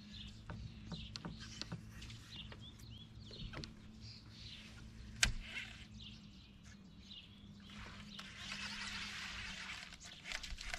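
Quiet outdoor lake ambience: short bird chirps over a low steady hum, with scattered light clicks from the rod and reel, a sharper click about five seconds in, and a soft hiss rising for a couple of seconds near the end.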